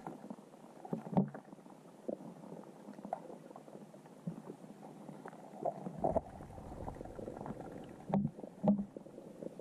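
Muffled underwater sound from a camera submerged in a river: faint water noise with scattered dull knocks and gurgles, the loudest a pair of low thumps near the end.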